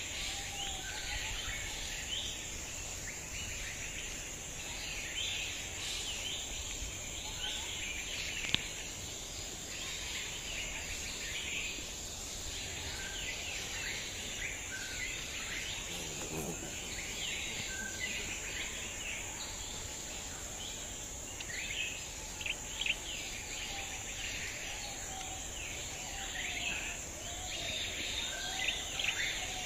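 Outdoor ambience of many birds chirping, over a steady high-pitched insect drone.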